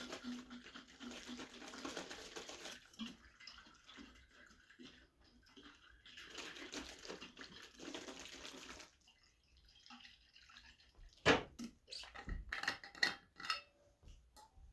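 Foley sound effects: a rushing, water-like noise in two stretches, then a quick run of sharp knocks and clicks near the end.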